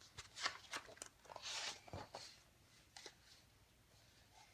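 Pages of a large picture book being handled and turned: a few faint taps and rustles, with a brief papery swish about a second and a half in.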